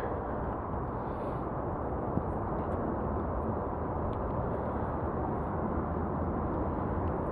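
Steady rushing wind and rolling noise on the microphone of a moving bicycle ride, even throughout, with one faint click about two seconds in.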